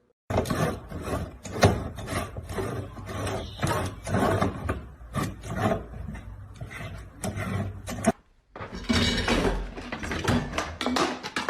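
Rapid scratching and rubbing noises full of small knocks and clicks, breaking off about eight seconds in and starting again half a second later.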